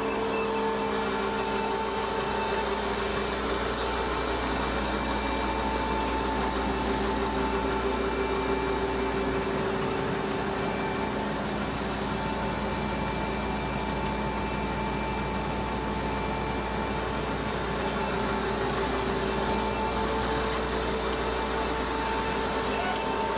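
Hydraulically driven unloading auger of a Hensley Super Auger bulk feed trailer running steadily under load as it unloads feed, a constant mechanical hum with a steady whine in it.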